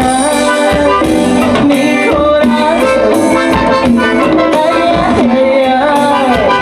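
Loud live band music with a steady drum beat under a melodic lead line that slides up and down in pitch.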